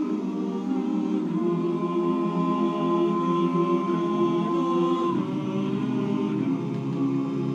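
Barbershop chorus singing a cappella in close harmony, holding long sustained chords with a chord change about five seconds in.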